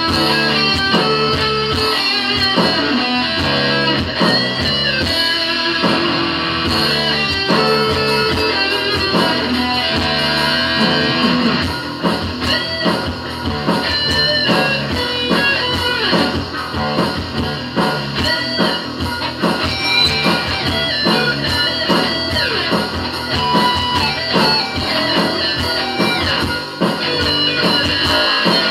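Electric guitar playing a rock piece, a steady stream of quickly changing notes.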